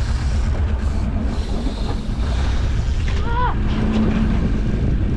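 Boat engine running steadily under wind noise on the microphone, with a short falling cry about three seconds in.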